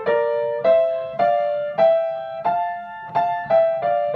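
Piano playing two-note intervals up and back down the F major scale, each pair struck about every half second as a scale-practice pattern.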